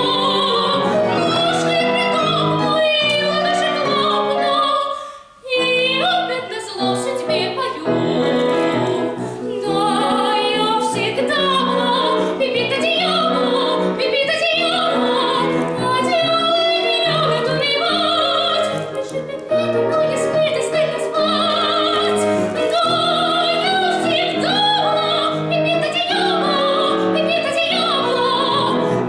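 A woman singing an operetta song in a trained classical voice with vibrato, over instrumental accompaniment. The music breaks off briefly about five seconds in.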